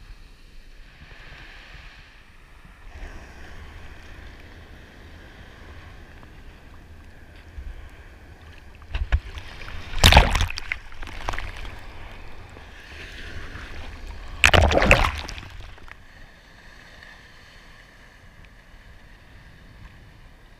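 Seawater sloshing and rushing around a microphone held at water level in the surf, with two loud washes of water over it, about halfway through and again some five seconds later.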